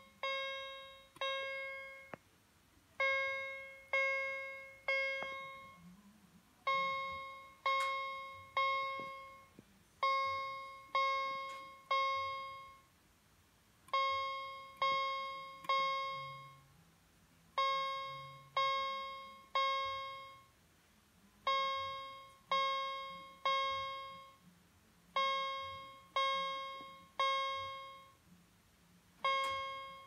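Fire alarm horn/strobe set to its chime tone, sounding in groups of three ringing chime strikes that each die away, the group repeating about every four seconds: the three-pulse temporal-3 fire evacuation pattern.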